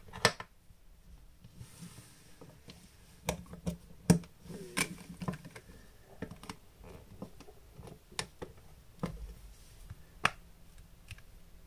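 Scattered sharp plastic clicks and taps from handling a Sony AS300 action camera's battery and its snap-on plastic battery cover, the loudest about four seconds in.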